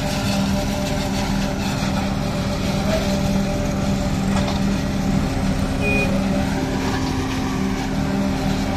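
Forage harvester chopping standing maize and blowing silage into a trailer, with the tractor pulling the trailer alongside; a steady, even machinery drone.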